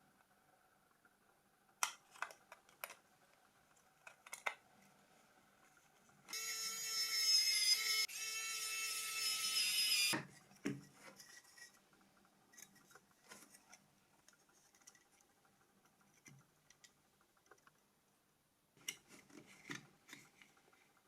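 Light clicks and taps of small phone parts being handled. About six seconds in, a loud steady pitched hum starts, runs for about four seconds and cuts off suddenly, followed by a soft thump.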